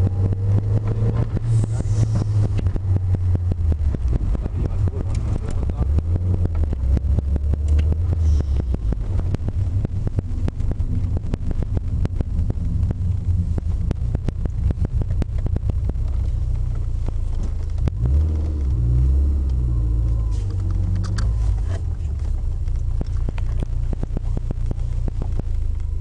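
Lancia Delta heard from inside the cabin while driving: a steady low rumble of engine and road noise.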